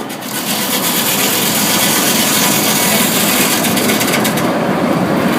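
Sawmill saw cutting through a log, a loud steady run of cutting noise whose high hiss drops away about four and a half seconds in.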